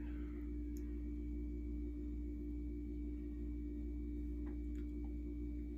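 A steady electrical hum: a constant low drone with a steady mid-pitched tone over it. A few faint clicks come near the end.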